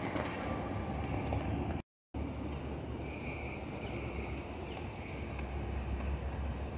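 Outdoor ambience with a low rumble of wind on the microphone, cut by a brief total dropout about two seconds in; a faint higher hum comes and goes in the second half.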